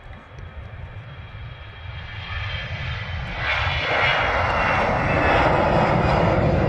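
Airbus A320-214's twin CFM56 turbofan engines at takeoff thrust as the jet lifts off and climbs past. The engine noise builds steadily and becomes much louder about three and a half seconds in.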